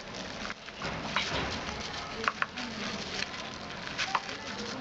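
Thin plastic bag crinkling and rustling as it is handled, with a few short high chirps.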